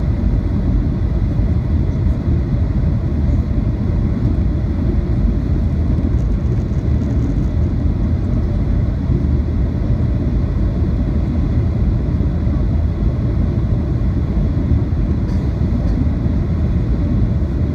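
Steady low rumble of an airliner's jet engines and rushing air heard from inside the passenger cabin, during the descent on approach.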